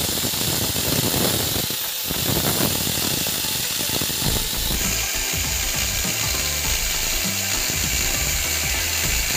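Angle grinder with a thin cut-off disc cutting through steel angle bar: a loud, steady, high-pitched grinding. About five seconds in the pitch of the whine changes as it cuts a different piece.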